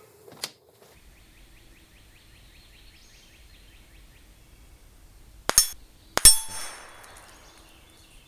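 Rifle fire on a steel plate target: two sharp cracks about 0.7 s apart, the second the loudest and followed by a short metallic ringing tail. A small click comes about half a second in.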